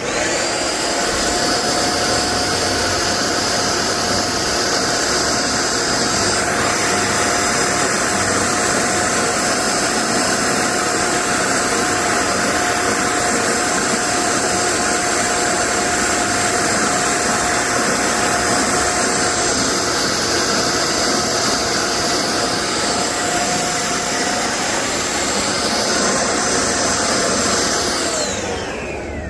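An electric motor running at a steady high speed for nearly half a minute, with a constant whine over a dense rushing hiss, then spinning down with a falling pitch near the end.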